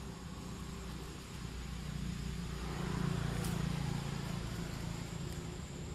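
A motor vehicle engine running, a low hum that swells about two seconds in and eases off again toward the end, like a vehicle passing.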